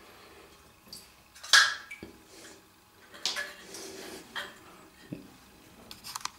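Scattered light metallic clinks and knocks from a small tin pop-pop steam boat in a bathtub, one louder knock about a second and a half in and a quick cluster near the end as the boat is lifted out by hand.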